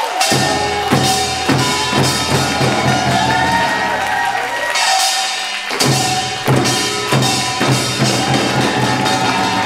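Korean percussion ensemble of children beating sogo hand drums and larger laced drums in a steady samulnori-style rhythm, with a sung melody over it. The low drum strokes drop out briefly about five seconds in, then pick up again.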